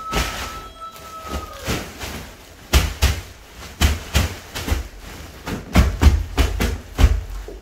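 Woven polypropylene bulk bag rustling and crackling as hands pull its lifting straps together and work the top closed, with irregular dull thumps as the full bag is pressed down, most of them in the second half.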